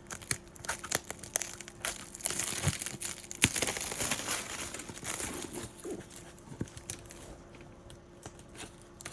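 Packing tape being peeled and torn off cardboard shipping boxes, with crinkling and scratchy handling noise. It builds into a long ripping stretch from about two and a half to five and a half seconds in, with a sharp crack near its start, then dies down to light rustling.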